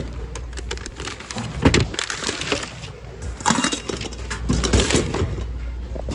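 Hands rummaging through a bin of mixed secondhand goods: items shifting and scraping against each other, with irregular clatters, clinks and knocks of hard objects.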